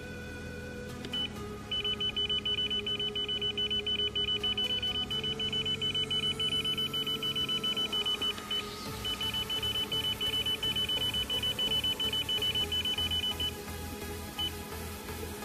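Teach pendant of a Kawasaki robot controller beeping as its touchscreen keys are pressed: a few single beeps, then a long, even, rapid run of short high beeps, about four a second, broken once a little past halfway. Soft background music underneath.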